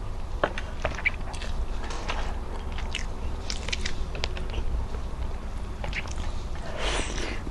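Close-miked mouth sounds of a person eating: wet chewing with many short, sharp mouth clicks and lip smacks, and a longer, louder wet sound about seven seconds in.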